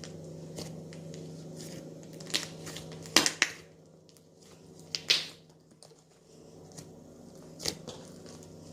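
Hands squeezing and pressing slime full of foam beads, giving scattered crackles and small pops, with two louder bursts about three and five seconds in.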